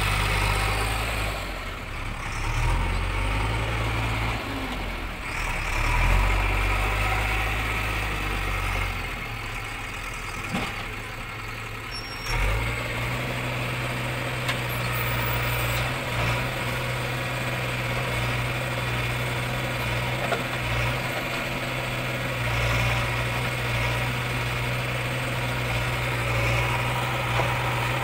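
JCB 3DX backhoe loader's diesel engine running as the machine works a soil pile. Its note shifts up and down through the first twelve seconds or so while the machine moves and swings its loader bucket, then holds steady while the backhoe arm digs.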